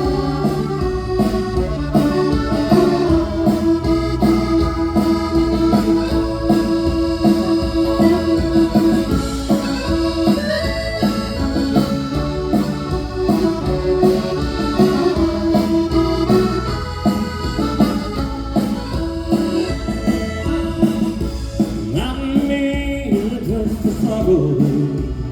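Live dance band playing an instrumental break between verses, with no singing. A lead instrument holds long, steady notes over a continuous drum and bass backing.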